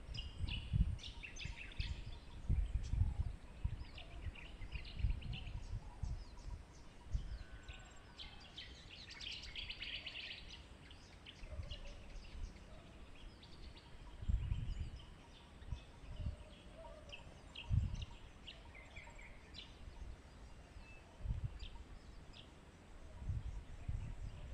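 Small birds chirping and calling in short scattered bursts, with intermittent low rumbling thumps.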